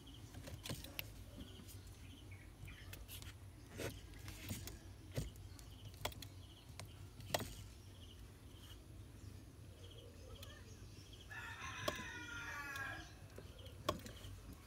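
A rooster crows once, about eleven and a half seconds in, lasting under two seconds. Behind it a faint chirp repeats steadily, and there are a few sharp clicks and knocks of handling.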